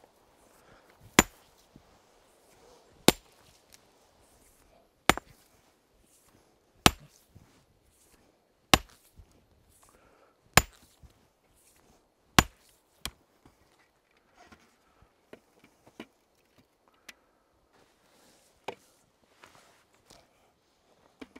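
A sledgehammer striking a large rock seven times at an even pace, about one blow every two seconds, to knock its high top off. Each blow is a sharp crack with a short ring. Softer, scattered knocks follow.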